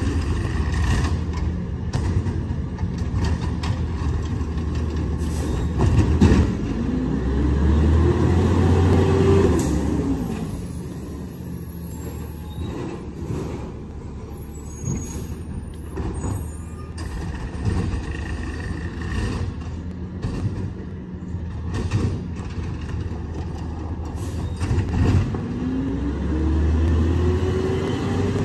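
McNeilus ZR automated side-loader garbage truck with its diesel engine running. Twice, about a quarter of the way in and again near the end, the engine revs up and back down with a rising then falling whine as the hydraulics drive the arm, with air-brake hisses and clanks in between.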